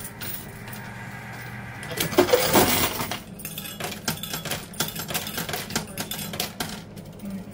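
Quarters clinking in a coin pusher machine: a dense run of small metallic clicks as coins drop and knock against the coins on the playfield, over a low steady hum.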